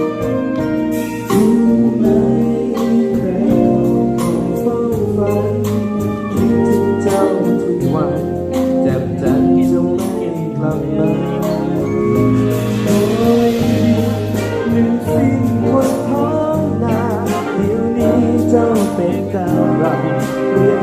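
A band playing a song with a steady beat under a melodic lead, with singing.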